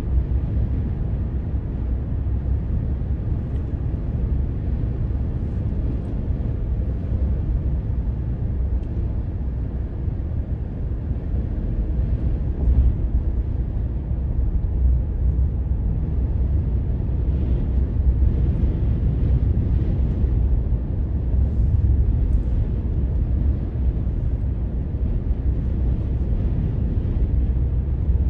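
Steady low rumble of a car driving at road speed, heard from inside the cabin: engine and tyre noise.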